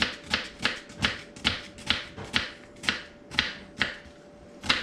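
Kitchen knife chopping an onion on a wooden cutting board: a quick, slightly uneven run of sharp chops, about three a second.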